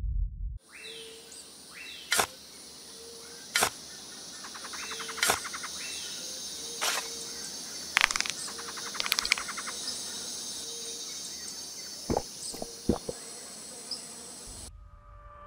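Outdoor insect chorus of crickets, a steady high-pitched buzzing. Through it a short lower note repeats about every second, and a few sharp clicks and knocks are scattered across it.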